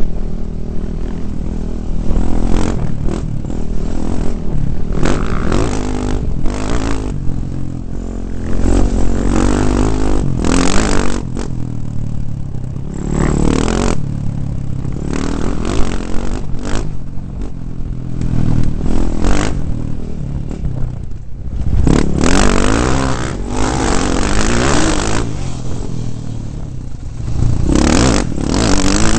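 2009 KTM 450 single-cylinder four-stroke dirt bike engine revving up and down while riding a rough dirt track. Frequent clattering knocks come from the bike over the bumps, and the engine eases off briefly about two-thirds of the way through.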